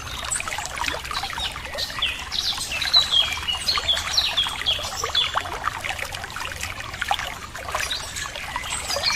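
Water trickling and gurgling over stones, a continuous babble of small splashes, with birds chirping over it, the calls busiest from about two to six seconds in.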